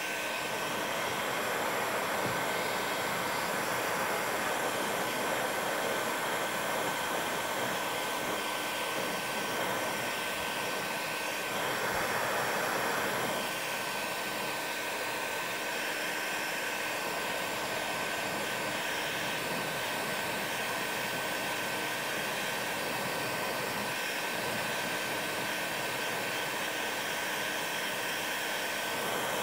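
Heat gun blowing hot air steadily: a rushing hiss with a thin, steady whistle, a little louder for a couple of seconds about midway. It is heating a polyethylene kayak's torn scupper hole and a plastic welding strip until they soften for welding.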